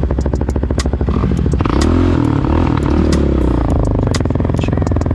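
Yamaha Raptor 700R ATV's single-cylinder four-stroke engine running under riding load, its revs rising and falling a few times about two seconds in, with frequent clattering knocks over rough ground.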